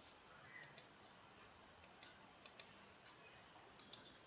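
Near silence: room tone with a few faint, short clicks, several coming in close pairs.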